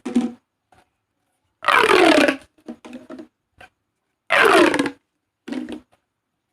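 Plastic pop tubes being stretched out, giving a crunchy, ratcheting buzz as the ridges snap open. The buzz falls in pitch during each pull. There are two main pulls, with softer crinkles and clicks between them.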